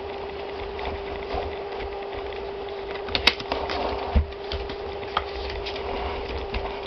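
Hands handling a white cardboard presentation box, sliding the inner box out of its sleeve: cardboard scraping and rustling, with a few sharp taps and knocks around the middle, over a steady hum.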